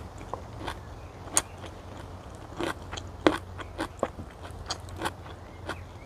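Close-up eating sounds: chewing, with about a dozen irregular sharp clicks and scrapes of a metal spoon and fork on a wooden plate, over a low steady rumble.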